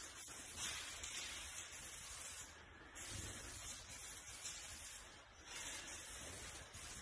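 Aerosol spray paint can hissing in long bursts as lines are sprayed onto a wall, with two short breaks between strokes.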